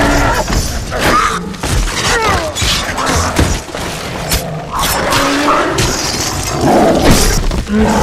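Film battle sound mix: a rapid run of clashing, smashing impacts with short shrill cries among them, over orchestral score.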